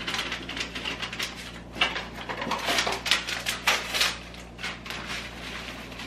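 Crinkling and rustling of a dry onion soup mix packet and an open plastic gallon bag as the mix is emptied into the bag. It comes as a string of sharp crackles, thickest in the middle seconds.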